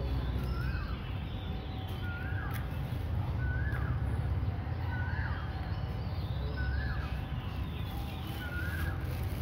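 A bird repeating a short call over and over, about once every second, with fainter bird calls higher up, over a steady low background rumble.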